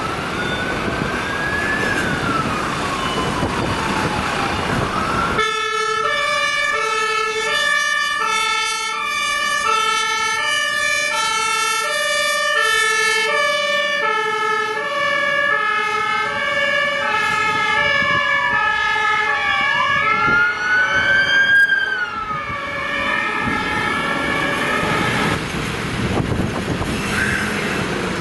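Emergency-vehicle sirens at a fire station. At first an electronic wail sweeps up and down over truck and car engine noise. From about five seconds in, a fire engine's two-tone siren takes over, switching between a low and a high tone a little more than once a second, with another wail gliding up and down over it. The two-tone stops a few seconds before the end, leaving the traffic.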